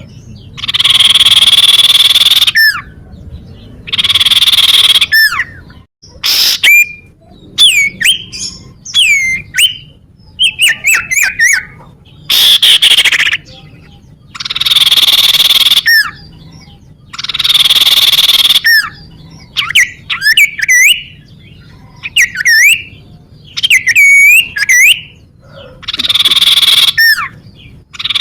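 Common iora (cipoh) song played as a lure: loud, harsh, buzzy phrases a second or two long, repeated every few seconds, alternating with runs of quick clear whistled notes that slide up and down in pitch.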